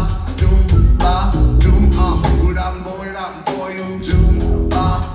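Live rock band playing, with a heavy bass and drum beat.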